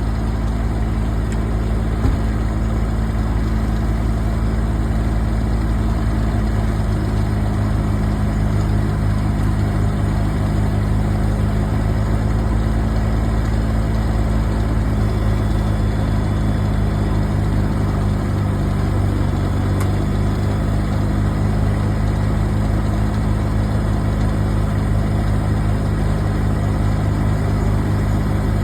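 A large engine idling steadily, low and even, holding the same speed throughout.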